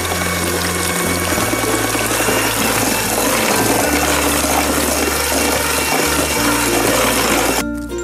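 Electric hand mixer running, its beaters mixing an egg into chocolate cake batter in a stainless steel bowl; it shuts off near the end.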